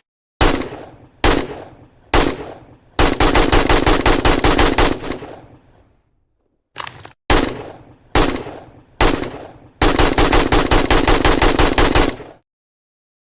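AK-47 assault rifle gunfire: three single shots about a second apart, then a full-auto burst of about two seconds. After a short pause the pattern repeats, with a few single shots and then a longer automatic burst.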